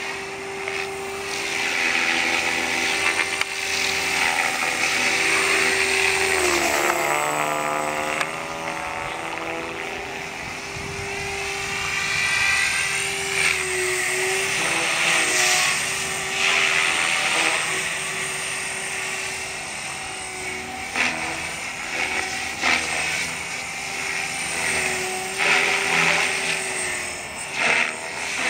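Mikado Logo 480 electric RC helicopter in 3D flight: a steady high motor whine with rotor buzz that swells and fades as it moves around. The pitch dips and climbs back about seven seconds in.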